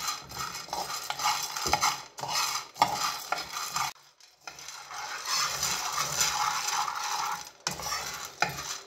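A metal spoon stirs and scrapes coffee beans around a frying pan, the beans rattling against the pan. They are near the end of a pan roast. There is a brief pause about four seconds in.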